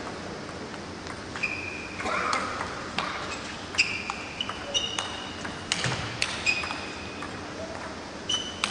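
Table tennis rally: the celluloid ball clicking sharply off the bats and table at an uneven pace, with short high squeaks from the players' shoes on the court floor.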